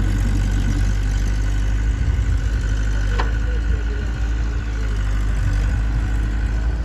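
Heavy diesel engine running at a steady idle, with a faint steady whine above it and one sharp click about three seconds in.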